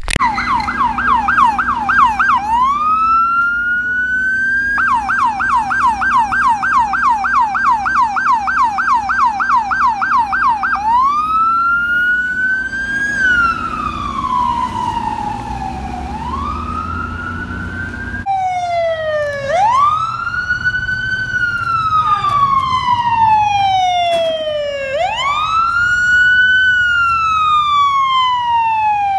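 Electronic emergency-vehicle sirens: a fast yelp, broken once by a rising sweep, switches to a slow wail about eleven seconds in. Later a Los Angeles Fire Department paramedic ambulance's siren wails slowly, rising and falling about every six seconds.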